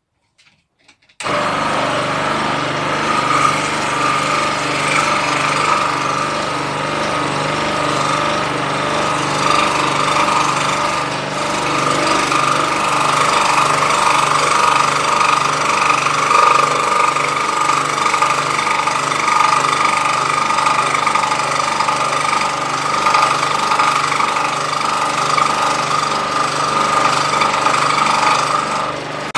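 Old scroll saw running steadily, its pinless blade cutting through MDF with a fast, even rhythm from the blade's strokes. The sound starts suddenly about a second in.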